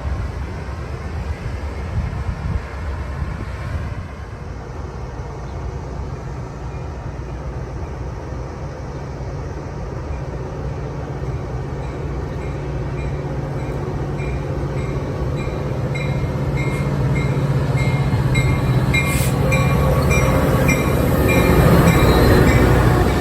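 A train rumbling closer and growing louder, peaking just before the end and then dropping away. A high-pitched ringing pulses at an even pace through the second half.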